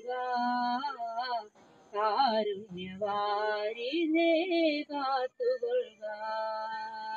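A woman singing a Malayalam devotional song: long, held, ornamented phrases with brief pauses for breath between them.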